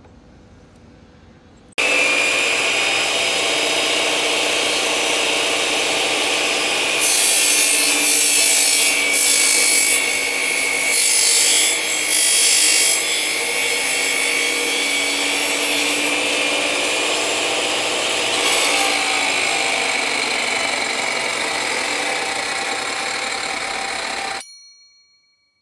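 A chop saw fitted with a tungsten carbide-tipped wood-cutting blade starts suddenly about two seconds in and runs with a steady whine. It has several louder, harsher spells as the blade cuts into a nail-studded wooden block, then stops abruptly near the end.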